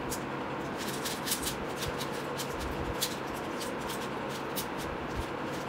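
4x4 Rubik's Cube being turned by hand: a quick, irregular run of light plastic clicks as the layers are twisted, over a steady low hum.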